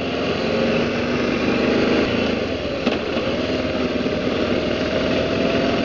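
BMW G650GS single-cylinder engine running steadily as the motorcycle rides along, its note shifting a little in pitch, under a steady rush of wind and road noise.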